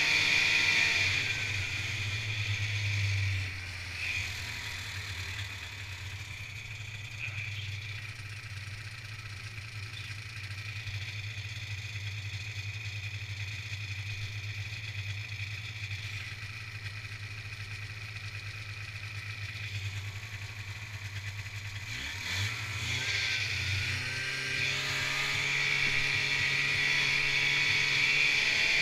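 Snowmobile engine dropping off throttle to a steady low idle, which holds for about twenty seconds. It then revs up with a rising pitch and runs at speed again near the end.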